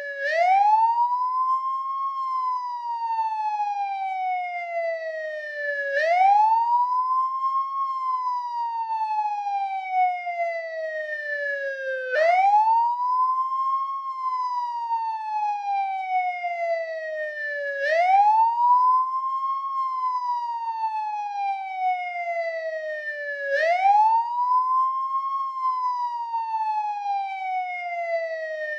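American police car siren on its wail setting: a single tone that rises quickly and then falls slowly, repeating about every six seconds, about five times over.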